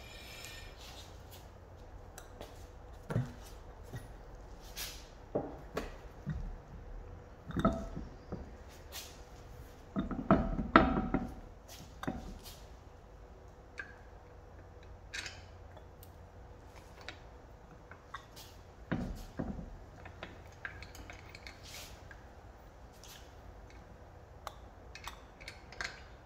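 Scattered metallic clinks and knocks as a car's rear wheel is refitted and its wheel nuts and socket are handled, with the loudest cluster about ten seconds in.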